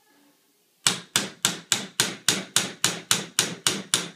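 Small hammer tapping a punch to drive the rear roll pin out of a rifle trigger guard. About a dozen light metallic taps, evenly spaced at roughly three and a half a second, start about a second in. The pin is working its way out.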